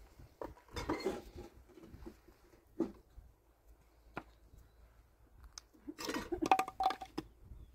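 Scattered metal clinks and scrapes as metal grill bars on a cinder-block hearth are handled. A few come about a second in, single clicks follow midway, and a louder cluster with a brief ring comes near the end.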